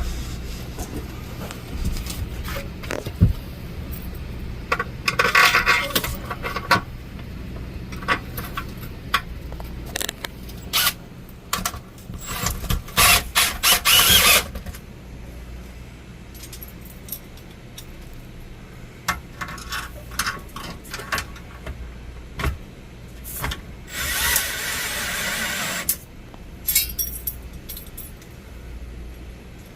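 Installation work: scattered clinks, knocks and rattles of hand tools and hardware, with a few short runs of a power drill, the longest a steady two-second run near the end. A low steady hum sits under it all.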